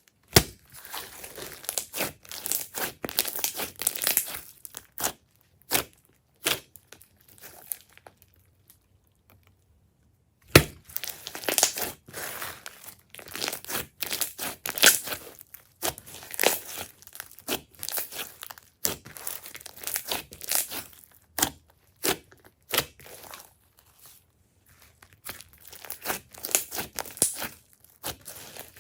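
Glossy slime being squished and mixed by hand: sticky, irregular clicks and crackles, with a pause of a few seconds partway through.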